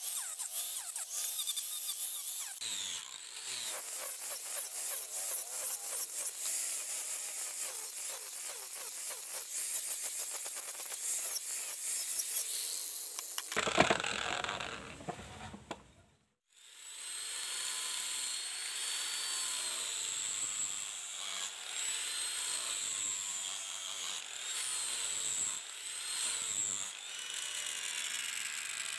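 A tool working a steel blade gives a dense, rasping noise of quick strokes. Just after halfway it cuts off to a moment of silence, then comes back as scraping with faint wavering high tones.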